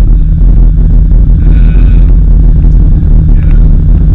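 Steady, loud rumble inside a moving van's cabin: engine and road noise heard from within the vehicle.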